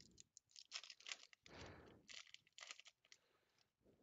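A baseball card pack's foil wrapper being torn open and crinkled by hand: faint crackling in short bursts, dying away about three seconds in.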